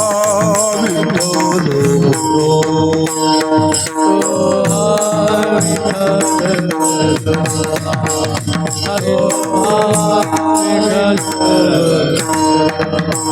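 Marathi devotional bhajan: a voice sings drawn-out, wavering phrases over steady held accompanying notes and a continuous percussion beat.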